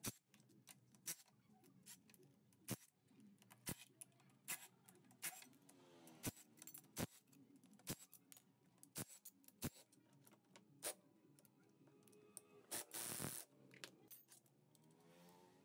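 Near silence broken by faint, sharp clicks, roughly one a second, with a short hiss about thirteen seconds in.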